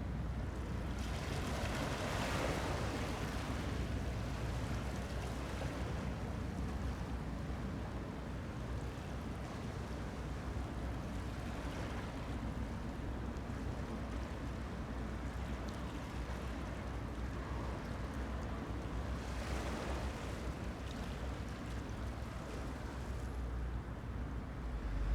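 Helicopter in flight, a steady low drone, with a rushing noise that swells about two seconds in and again near the end.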